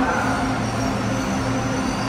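LRTA 2000-series (Rotem-built) light rail train running past along the platform: a steady rolling rumble of wheels on rail with a steady low hum from the traction equipment.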